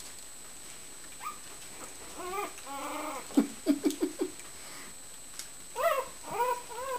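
Four-week-old Shichon puppies whimpering and giving short yips, in several brief bursts with a quick run of little calls in the middle: puppies just learning to use their voices.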